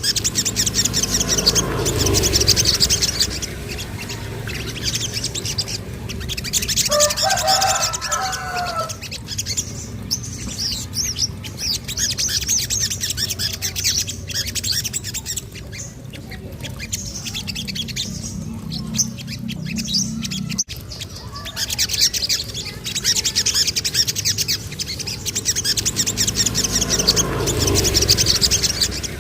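Sogon (sogok ontong) songbird singing rapid, high-pitched chirping trills in several bouts. A lower warbling call comes in about seven seconds in, over a steady low background hum.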